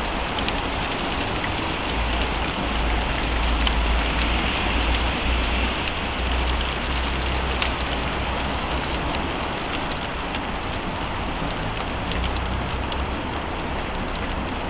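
Heavy rain pouring steadily, with single drops ticking sharply close by and a low rumble underneath that swells and fades.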